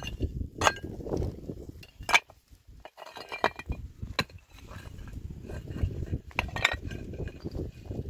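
Hard objects clinking and knocking together, about five sharp clinks spread through, over low scuffling noise.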